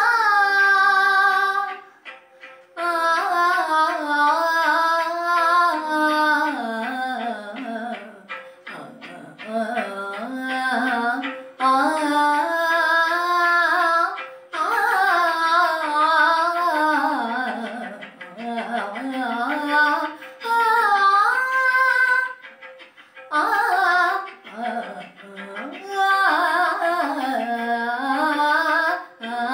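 A girl singing a song solo, her melody rising and falling in long phrases with short breaks between them.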